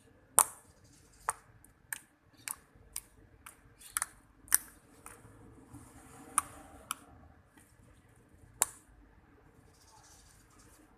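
Homemade glue slime, activated with contact lens solution and baking soda, being worked by hand, giving sharp little pops and clicks. There are about a dozen of them, roughly every half second at first and then more sparsely.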